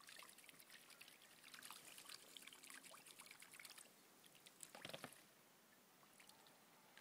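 Mallard ducks bathing in a shallow pool: faint splashing and trickling water, with a louder splash about five seconds in.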